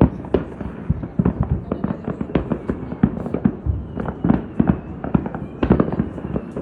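Fireworks going off in quick, irregular succession, many sharp bangs and pops, several a second.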